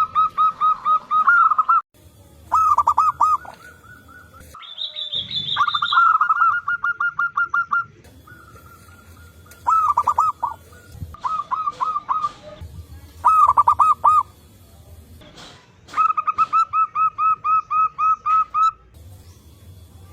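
Zebra doves (perkutut) cooing: repeated trains of short, rapid staccato notes, several bursts in turn as birds answer one another. A higher, thinner call from another bird comes in briefly about five seconds in.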